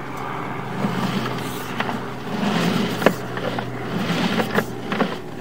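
Sewer inspection camera's push cable being pulled back through a clay sewer line, with a few sharp clicks over a steady low hum.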